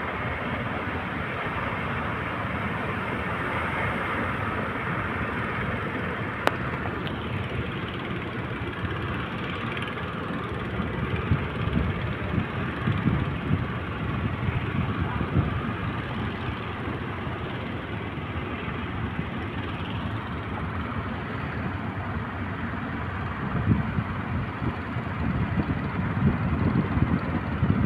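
Big ocean surf: a steady rush of breaking waves, with louder rumbling surges about eleven seconds in and again near the end.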